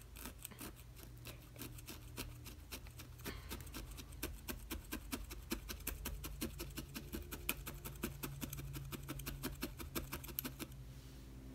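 Felting needle tool stabbing repeatedly through a wad of wool roving into a rice-filled burlap felting pad, at about four to five quick pokes a second, stopping shortly before the end. The pokes are tacking down the loose fibres and compacting them into a wool bead.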